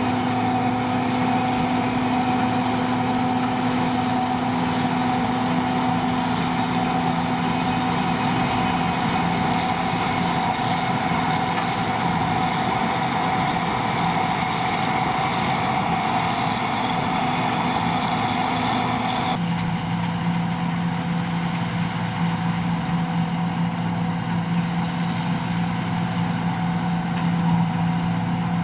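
John Deere 2258 combine harvester running steadily while harvesting, its engine and threshing machinery making a loud, even hum with several constant tones. About two-thirds of the way through, the sound changes abruptly to a lower, less hissy hum.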